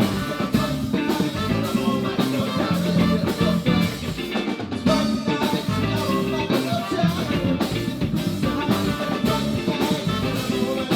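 Live band playing an instrumental passage between rap verses, with a steady drum beat under sustained instrument notes.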